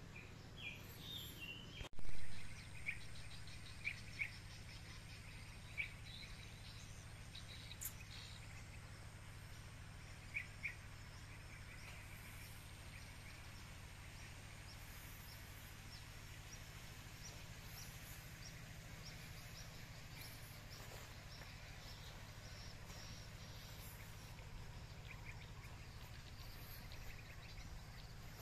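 Birds calling at dawn: scattered short chirps and tweets, over a low steady hum, with one brief loud knock about two seconds in.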